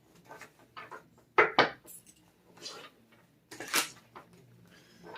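A handful of separate sharp knocks and clatters, two close together about a second and a half in and another near four seconds.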